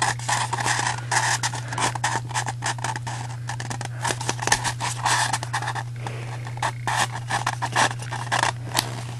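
Paper rustling and crackling as hands curl a cut sheet of patterned craft paper into a cone, with dry scraping as it rubs against itself and the cutting mat, in many small, irregular crackles.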